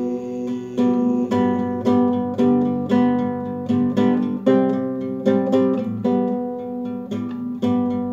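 Nylon-string classical guitar strummed in a steady rhythm, a chord stroke about every half second with the strings left ringing between.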